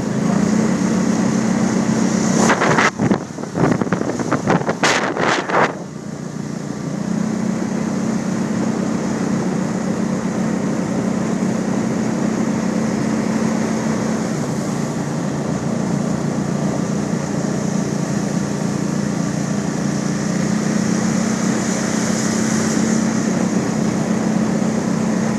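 Mud boat's motor running with a steady drone while the boat moves. About two and a half seconds in, the drone gives way for several seconds to a run of loud, rushing noise bursts, then comes back steady for the rest.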